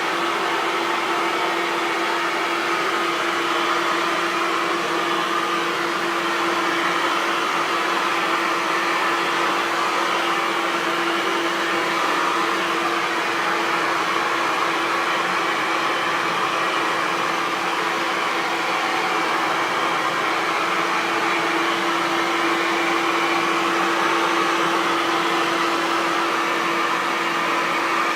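Hair dryer running continuously: an even rush of blown air over a steady motor hum.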